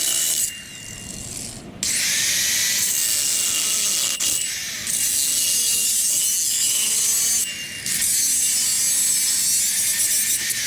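A power tool cutting steel pipe: a steady, high hissing whine that lets up briefly a few times between cuts.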